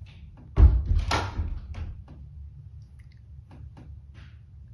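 A sudden loud thump about half a second in, followed by a second or so of quieter knocks, then a few faint clicks.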